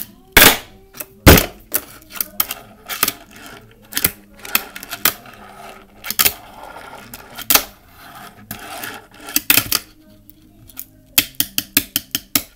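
Fingerboard being ridden on a tabletop quarter pipe: sharp clacks of the board popping and landing, with the wheels rolling between. The two loudest knocks come about half a second and a second and a half in, and a quick run of clicks comes near the end.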